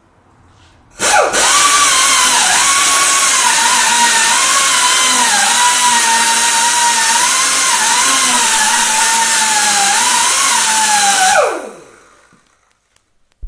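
Air-powered rotary tool with a wire wheel brush spinning up about a second in and scrubbing the rusty threads of an anti-roll bar drop link: a steady hissing whine that dips each time the brush bites, then winds down with a falling pitch near the end.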